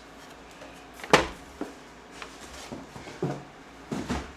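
Knocks and handling noises as a gift box is lifted and an item is taken out of it: a sharp knock about a second in, then two softer knocks near the end.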